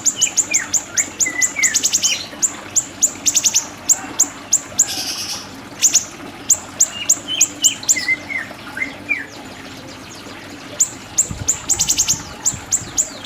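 A songbird known in Indonesia as siri-siri singing a masteran (training) song: rapid series of sharp, high, downward-flicking chirps, several a second, mixed with lower twisting notes and a brief buzzy phrase. There is a short pause before the chirping resumes near the end.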